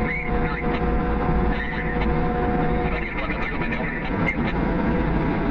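Heavy diesel farm machinery running steadily: a deep engine rumble with a steady whine over it that stops about three seconds in.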